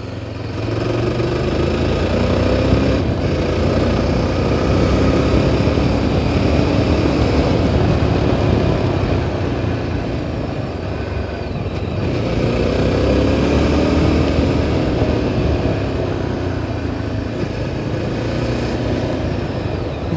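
Yezdi Adventure's 334 cc single-cylinder engine running as the motorcycle is ridden along, heard from a phone mounted on the bike together with road noise. The engine pitch rises twice as the bike pulls away and picks up speed.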